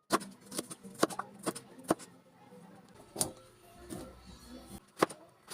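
Knife chopping cucumber on a cutting board: sharp strokes about two a second, a pause in the middle, and the chopping starting again near the end, over background music.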